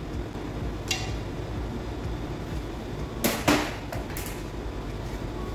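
Metal hand tools clicking and knocking against the engine block: a light click about a second in, then a sharper double click a little past three seconds and a smaller one after it, over a steady low background hum.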